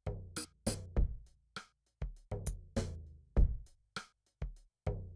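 Electronic music with a drum-machine beat: deep kick-drum thumps and sharp high drum hits, about two to three a second.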